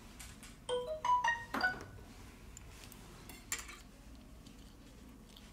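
A short chime of a few clear notes stepping upward in quick succession, like a phone notification tone, about a second in. A light click follows near the middle.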